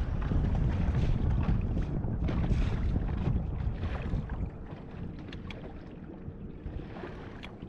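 Wind buffeting the microphone on a fishing boat, heavy for the first four seconds or so and then easing, with a few light ticks.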